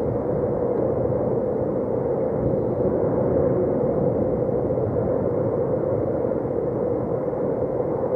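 Wind blowing on the microphone: a steady, dense rushing noise with no distinct events.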